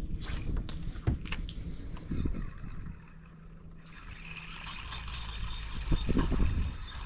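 Steady low hum of a boat's electric trolling motor, with a few sharp knocks early on. From about four seconds in, a fine whirring hiss of a Shimano Twinpower spinning reel winding in line, and a low thump near six seconds.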